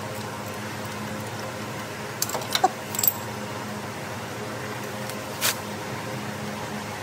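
Metal hand tools clinking and clicking a few times between two and three seconds in, and once more later, over a steady low hum.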